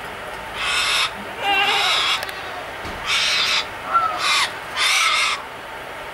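A bird calling five times in a series, each call harsh and about half a second long, over a steady background hiss.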